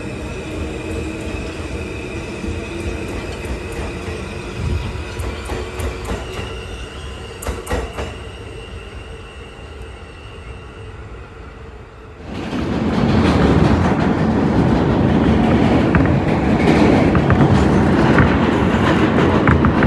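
New York City subway train running on the rails, with a steady high whine at first. About twelve seconds in, the noise jumps suddenly to much louder rail noise.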